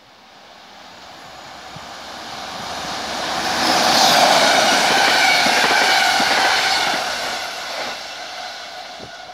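An NS class 1700 electric locomotive hauling double-deck passenger coaches passes by at speed. The sound builds to its loudest about four seconds in, then fades as the train moves away, with a run of wheel knocks on the rails under the steady rumble.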